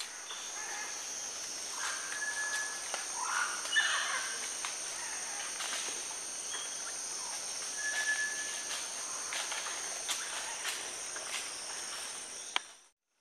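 Tropical forest ambience: a steady high-pitched insect drone with a couple of short, level bird whistles and a few scattered clicks and rustles, cutting off abruptly near the end.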